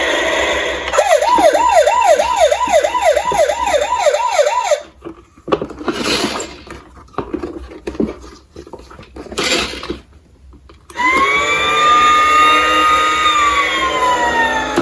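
Electronic emergency-vehicle siren yelping, about three quick up-and-down sweeps a second for nearly four seconds. It stops, a few quieter knocks and rustles follow, and then a single long wail that rises quickly and slides slowly down comes near the end.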